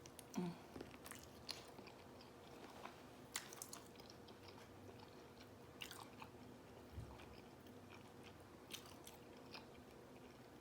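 Faint eating sounds: quiet chewing and biting of fried food, with scattered soft crunches and mouth clicks.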